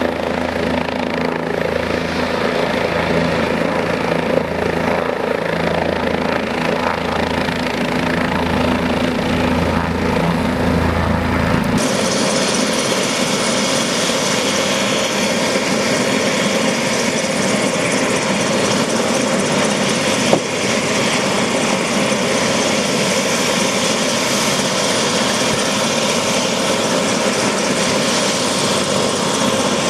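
Medical helicopter running on the ground, a steady turbine whine with the rotor's low, pulsing beat. About twelve seconds in, the low beat drops out abruptly, leaving a steady hiss and a higher hum. A single sharp click comes about two-thirds of the way through.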